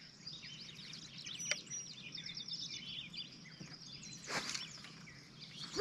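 Songbirds chirping and singing around a calm lake, with a single sharp click about a second and a half in and a brief whoosh of a fishing rod being cast about four seconds in.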